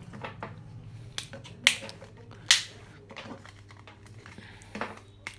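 Sharp plastic clicks and taps as a mobile phone's case parts are handled and snapped back together during reassembly, two of them much louder than the rest, over a faint steady hum.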